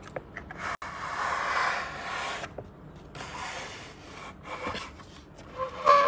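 Cardboard toy box scraping and rubbing against a tabletop as it is slid, lifted and turned over, with scattered handling clicks. A brief, louder squeak comes near the end.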